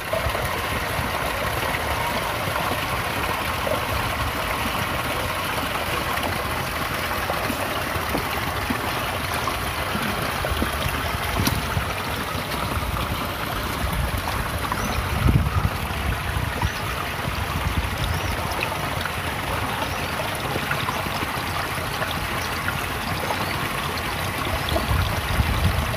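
Shallow creek water running and trickling over rocks, a steady rushing sound, with uneven low rumbling that swells about halfway through and again near the end.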